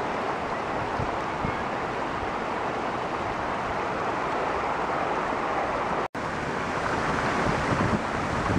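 Floodwater rushing steadily across a paved street, a continuous hiss of flowing water, with wind now and then buffeting the microphone. The sound breaks off for an instant about six seconds in.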